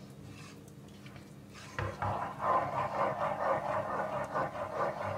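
Wooden spoon stirring a thick custard of milk, condensed milk and cornstarch in a metal pot, with creme de leite being mixed in. Quiet at first, then quick, repeated stirring strokes start about two seconds in.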